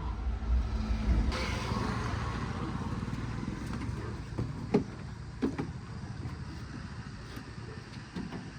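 Diesel engine of heavy earth-moving machinery running steadily, with two short metallic knocks around the middle.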